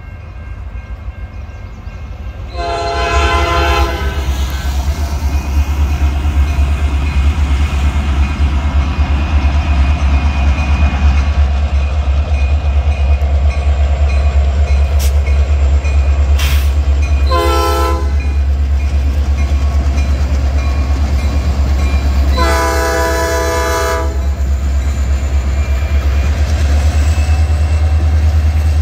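Diesel freight locomotive's air horn sounding three blasts, long, short, long, as the train nears a grade crossing. A steady low rumble sets in about two seconds in and carries on under the horn.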